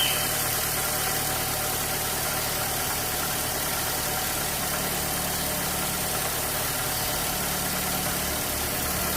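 Fiat Palio's four-cylinder engine idling steadily with its alternator belt turning, heard close up in the engine bay.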